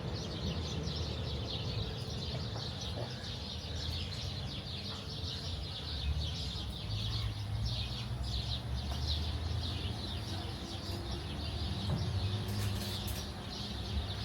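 Many small birds chirping continuously in quick, overlapping short calls, over a low steady hum.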